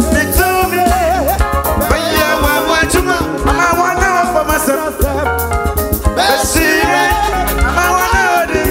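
Live band playing upbeat gospel worship music, with trumpet and trombone, a bass line, drums and keyboard under singing voices.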